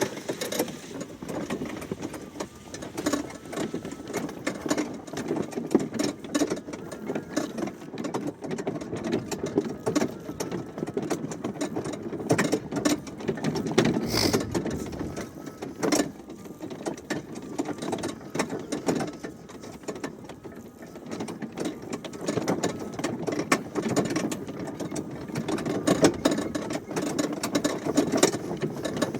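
Greenworks electric riding lawnmower driving while towing a loaded wagon, its motors running with a steady whir, with frequent rattles and knocks throughout as it moves over rough ground.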